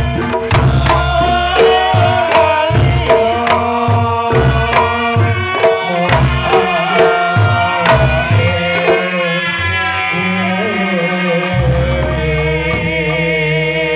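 Javanese gamelan for Reog Ponorogo: a large kendang hand drum played in fast, busy patterns with a gong and a woman singing over it. The drum strokes thin out after about nine seconds, leaving a deep held gong tone under the singing.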